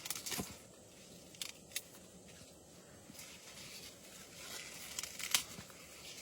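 Youmai lettuce being prepared by hand: a few crisp snaps and tearing, crinkling rustles, grouped near the start and again about five seconds in.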